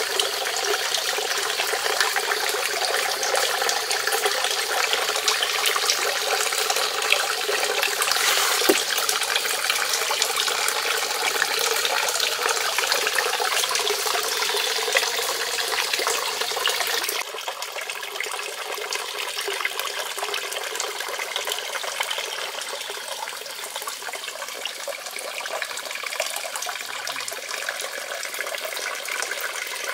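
Water pouring in thin streams from a clay fountain spout into a shallow pond, a steady splashing trickle. It drops a little in level a bit past halfway.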